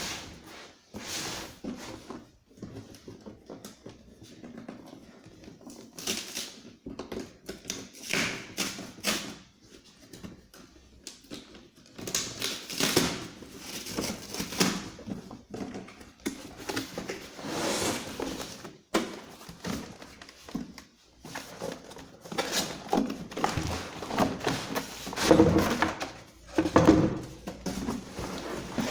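Cardboard box and packaging being handled and opened: irregular rustling, scraping and knocks.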